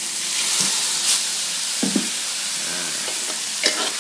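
Water poured into a hot stainless-steel pan of frying minced chicken, chili and garlic, hissing and sizzling as it hits the hot metal; it loosens food sticking to the lightly oiled pan. A few short knocks of the plastic spatula against the pan come through.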